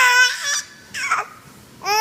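Baby's high-pitched vocal squeals: one at the start, a short breathy sound about a second in, and another squeal near the end.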